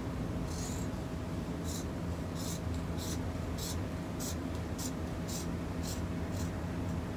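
Scissors snipping into a neoprene wetsuit with about ten short, crisp cuts, roughly two a second, over a steady low hum.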